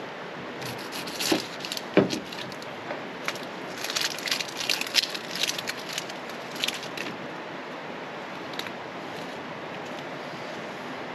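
A knife knocks twice on a small cutting board, then dry crackling and rustling goes on for a few seconds as the papery skin of a red onion is peeled off by hand.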